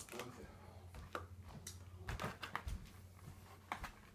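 Pokémon trading cards being flipped through by hand: faint, scattered soft clicks and rustles of card against card, over a low steady hum.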